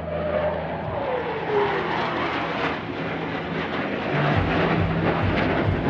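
Boeing F-15SG twin-engine fighter jet flying past in a display: a loud jet roar with a whine that falls in pitch over the first two seconds as it goes by.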